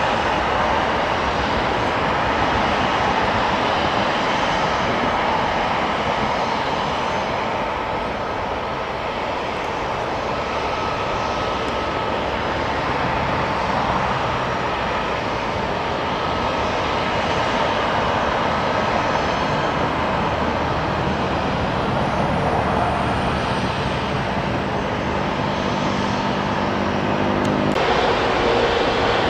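Jet airliner engines running: a steady, dense noise with a faint whine. The sound changes abruptly near the end.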